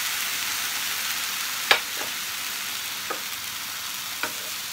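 Milk sizzling with a steady hiss in a hot pan of desiccated coconut and ghee, while a wooden spatula stirs it and knocks against the pan four times, the first and loudest about a second and a half in.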